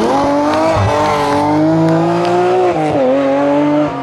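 BMW M3 E36 rally car's straight-six engine at high revs under full throttle, climbing as it pulls hard. About three seconds in the revs drop briefly, as at a gearchange or a lift, then pick up again.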